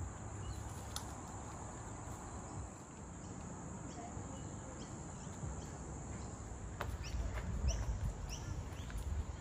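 Outdoor ambience: a steady, high-pitched insect drone, with a bird starting a run of short repeated chirps about seven seconds in, over a low rumble.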